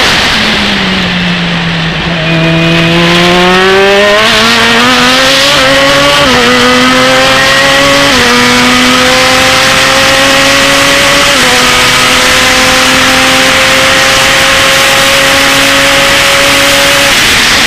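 Open-wheel race car's engine heard onboard at full throttle: revs sit low out of a slow corner, then climb through quick upshifts at about six, eight and eleven seconds in, run high and steady down the straight, and fall away near the end as the driver lifts.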